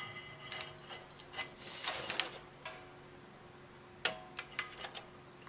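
Hobby-knife blade trimming excess FEP film along a resin vat frame: scattered clicks and taps of the blade and stiff plastic, with a short scratchy rustle about two seconds in and a sharper click about four seconds in.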